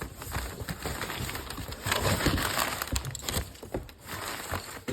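A large cardboard box being handled and opened: irregular crackling, scraping and knocking of cardboard.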